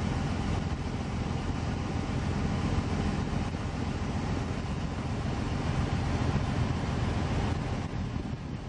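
Steady low rumble of a moving river cruise boat, with wind buffeting the microphone.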